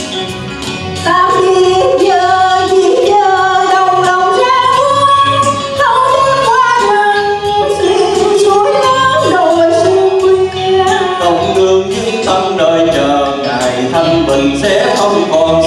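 A woman singing a Vietnamese song over instrumental backing, her voice coming in loudly about a second in.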